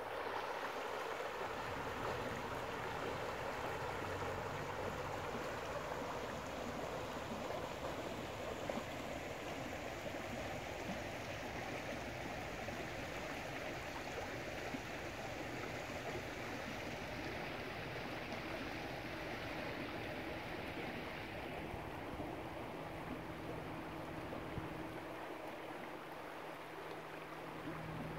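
Shallow creek water rushing steadily over a stony riffle.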